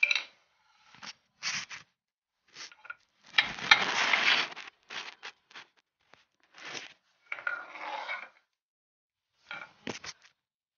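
Scattered rubbing and scraping noises of things being handled and shifted close to a floor. The longest scrape runs about a second, some three and a half seconds in, and shorter scuffs and a sharp knock come near the end.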